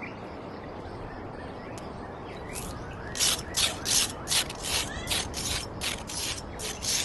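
Short scratchy rasps, about two or three a second, start about three seconds in over a faint hiss, like something being scraped or brushed back and forth.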